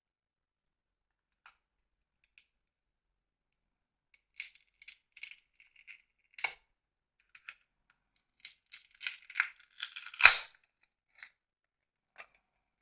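Small clicks and scratchy scraping of plastic phone-battery parts being handled and pried at, with a single sharper knock about ten seconds in.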